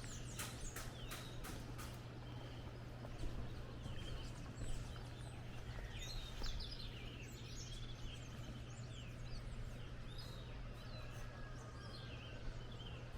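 Many birds chirping and calling over the steady rushing of a distant waterfall (Pozo Azul), with a low steady hum underneath. There are a few sharp clicks in the first second or so.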